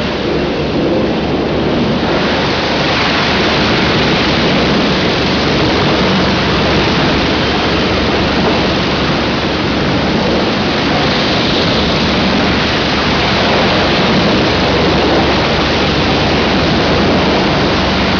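Industrial wood chipper running, a loud, steady noise of machinery and wood being chipped with a faint low hum underneath.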